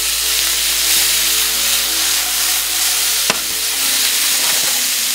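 Venison strips, peppers, onion and mushrooms sizzling steadily in oil in a hot skillet, with a single sharp knock about three seconds in as the pan is handled.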